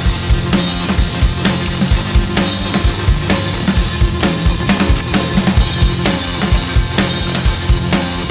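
Drum kit playing a steady groove, with kick drum and snare hits repeating several times a second over low sustained pitched notes.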